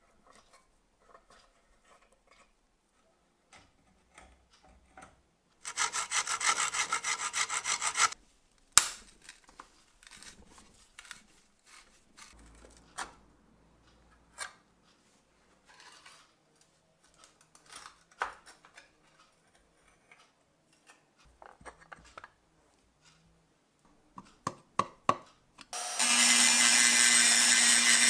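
Workshop work on a rusty manual coffee grinder: about two seconds of loud, rapid scraping like sawing, then scattered clicks and knocks of parts being handled. Near the end, about three seconds of a loud, steady tool noise with a low hum under it.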